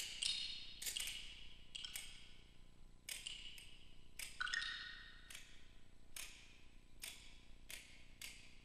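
Sparse, quiet strikes on small percussion instruments, each a sharp tap with a bright ring that fades away, coming at uneven intervals about once or twice a second and closer together near the end.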